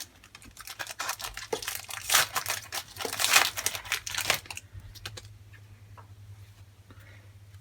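A trading-card pack wrapper being torn open and crinkled by hand, with crackling tears for about four and a half seconds, loudest around two and three seconds in. The crackling then stops and only faint handling ticks remain.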